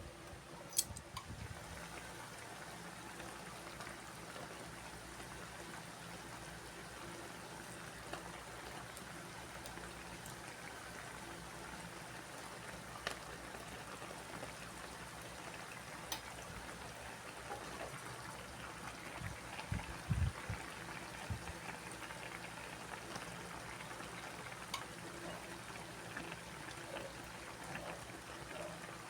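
Chicken adobo with potatoes simmering in a pot, a faint steady bubbling with a few sharp ticks scattered through. A brief cluster of low knocks about twenty seconds in.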